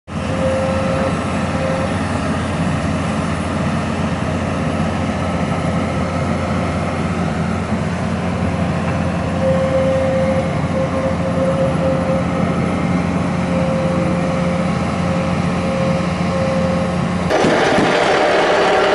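Hydraulic vibratory pile driver running with a steady, even mechanical hum. About seventeen seconds in, the sound turns suddenly harsher and noisier.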